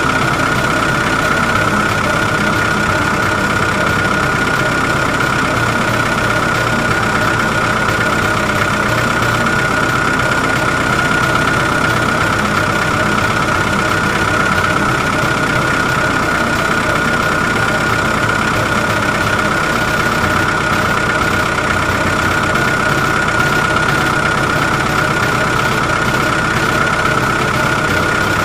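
Excavator engine running steadily, with a constant high-pitched whine over it.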